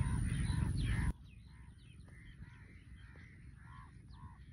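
Birds calling over and over in short, harsh, caw-like notes, about two a second. A louder background rush under the calls drops away suddenly about a second in.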